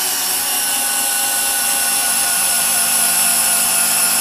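Bosch PS31 12V Max cordless drill/driver in low gear (speed one) driving a long TimberLok screw into wood: a steady motor and gearbox whine under load.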